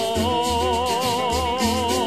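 Puerto Rican jíbaro music: one long held note with a steady, even vibrato over a rhythmic accompaniment with shaken percussion.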